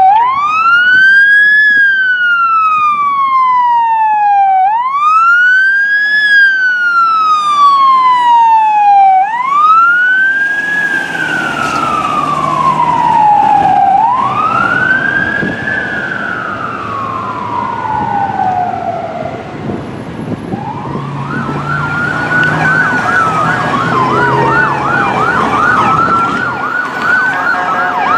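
Fire engine's siren on a slow wail, each cycle rising quickly and falling away over about four seconds, with a second wail overlapping partway through and engine rumble as the truck goes by. About twenty seconds in, a much faster yelping siren from an ambulance takes over.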